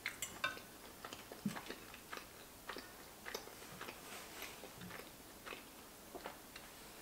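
Chewing a mouthful of soft giant fusilli pasta in a thick sauce: faint, irregular wet mouth clicks and smacks.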